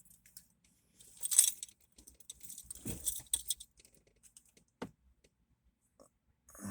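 Close jingling and rustling in two bursts, about a second in and again from two to three and a half seconds, followed by a single sharp click near five seconds.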